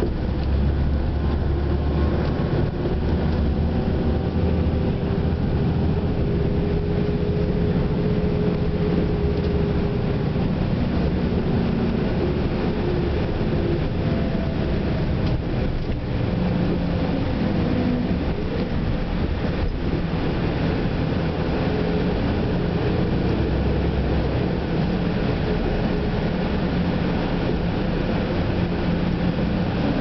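Tour bus engine running, a steady low rumble heard from inside the bus.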